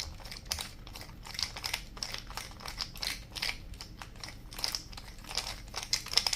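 Hand screwdriver turning small screws back into an airgun magazine's body: a string of irregular small clicks and scrapes.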